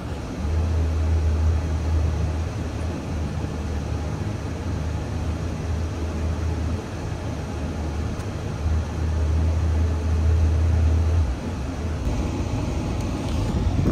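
A Ford 3.5 EcoBoost twin-turbo V6, heard from inside the cabin, runs at a raised speed of about 2,000 to 3,000 rpm after a coolant refill, with a steady low drone. The drone eases a little past halfway, then comes back, and drops again near the end.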